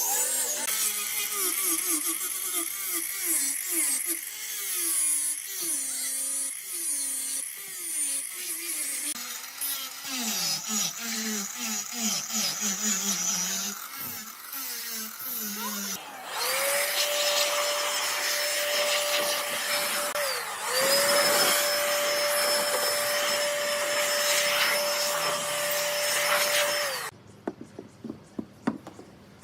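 A handheld power tool working wood, its pitch wavering as the load changes. It then runs at steady speed in two runs, spinning up, briefly stopping and spinning up again, then winding down. A few light knocks follow near the end.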